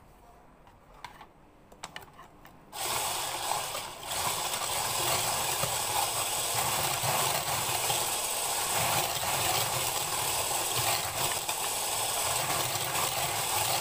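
Handheld electric mixer switched on about three seconds in and running steadily, beating eggs and sugar in a bowl, with a brief dip in its sound about a second after it starts. A few light clicks of handling come before it.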